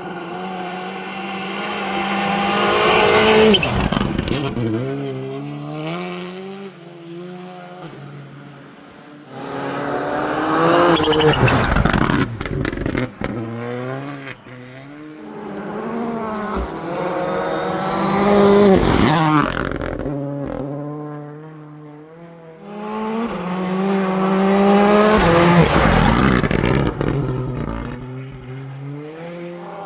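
Rally cars passing at speed, four times in turn. Each engine revs up and down through gear changes and drops in pitch as it goes by.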